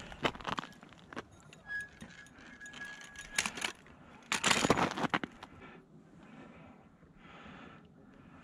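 Handling an ice-fishing tip-up and line at the hole, with scattered clicks and rattles. A thin steady squeak is heard about two seconds in. A loud noisy rush comes near the middle, followed by softer rustling.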